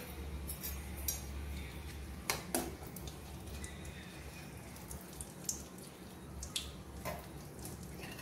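A steel spoon clinking and scraping against an aluminium kadai as dried red chillies are stirred in oil. There are a few sharp clinks, two in quick succession a couple of seconds in, over a low steady hum.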